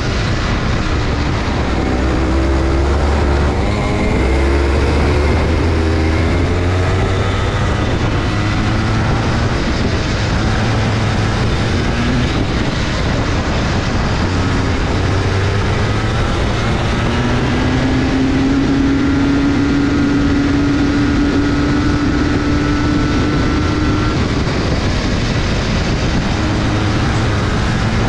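Go-kart engines running hard during a race, their pitch climbing and dropping again and again as the karts accelerate and slow, over a constant rumble of noise. One engine note climbs slowly and holds high for several seconds in the second half.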